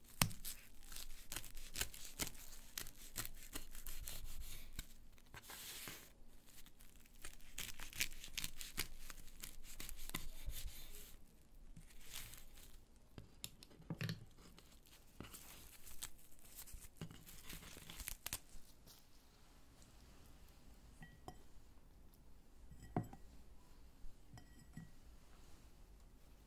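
A stack of perilla leaves being cut on a wooden cutting board: a dense run of crisp cutting strokes for about the first ten seconds, then a few separate knocks on the board and quieter handling.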